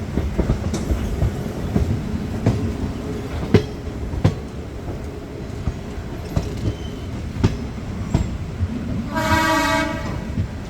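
Diesel-electric multiple unit (DEMU) train running, a steady low rumble with irregular wheel clicks over the rail joints. About nine seconds in, the train's horn sounds one short blast.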